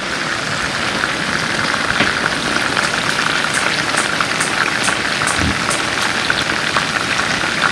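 Chicken thighs frying in a pan of hot oil: a steady sizzle with scattered crackles and pops.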